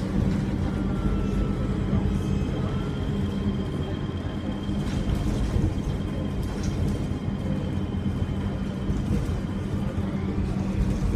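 Alexander Dennis Enviro300 bus engine running steadily under way, a constant low drone with a thin, steady high turbo whistle over it, unusually loud for this model.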